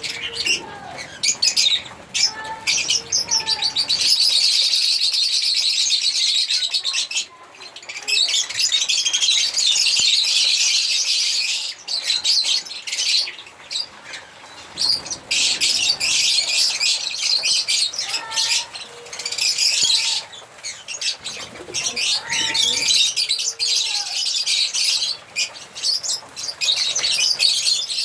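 African lovebirds chirping and chattering: a dense, continuous stream of rapid high-pitched twittering with brief lulls.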